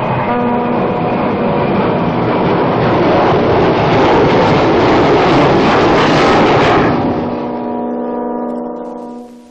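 A loud rushing roar with a horn-like chord held under it. The roar dies away after about seven seconds, leaving the steady horn tone, which stops just before the end.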